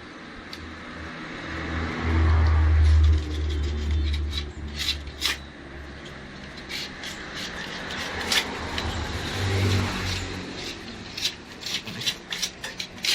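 A motor vehicle's engine passing close by: a low hum that swells, is loudest about two to four seconds in, fades, and rises briefly again near ten seconds. Scattered sharp clicks and knocks are heard throughout.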